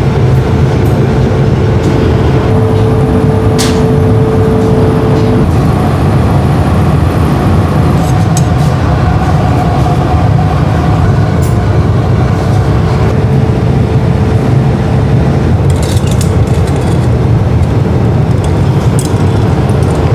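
Steady low roar of a glassblowing workshop's furnace, running unchanged throughout, with a faint steady hum over it for the first five seconds and a few light ticks scattered through.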